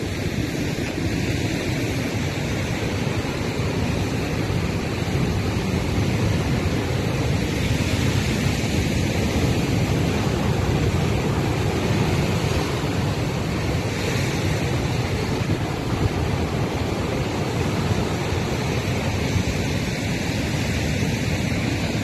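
Heavy Atlantic surf breaking over a rocky shore: a steady noise of churning white water, with wind buffeting the microphone.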